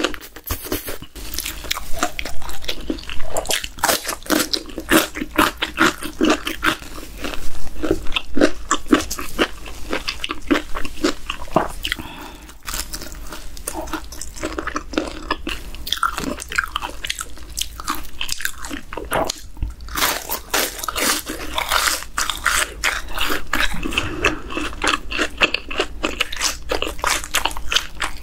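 Close-miked chewing and crunching of crispy fried chicken, with repeated sharp bites into the crust.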